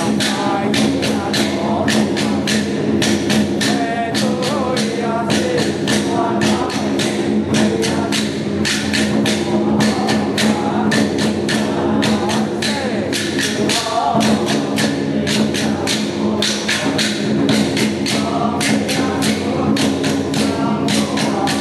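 Traditional Chinese temple percussion: drums, gongs and cymbals struck in a fast, steady beat of about three strikes a second, over a continuous ringing gong tone.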